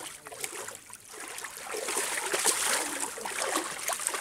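Water splashing and churning as a cast net holding fish is hauled up through shallow water; the splashing builds about a second in.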